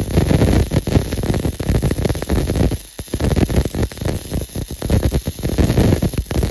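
Flux-core wire welding arc from a Lidl Parkside welder, crackling and sputtering continuously while running a vertical fillet weld, with a short dip about three seconds in.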